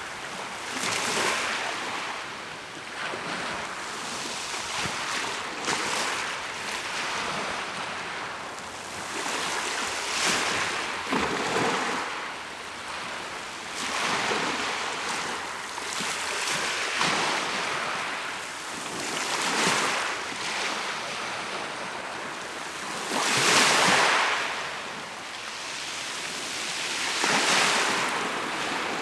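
Mediterranean Sea waves breaking and washing on the shore, each swell rising and falling every few seconds, the loudest near the end. Some wind buffets the microphone.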